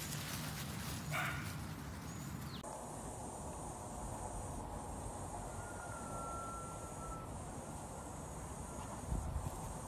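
A golden retriever puppy tugging on a leash gives a short high yip about a second in. After that comes steady outdoor ambience with a high insect buzz, a faint held whistle-like tone for about a second midway, and a few soft bumps near the end.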